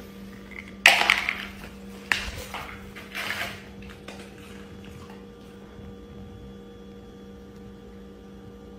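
Clear plastic dog bowl knocking and scraping on a concrete floor as a dog noses it and picks it up in its mouth: a sharp clatter about a second in, another knock about two seconds in, then a brief scrape, over a faint steady hum.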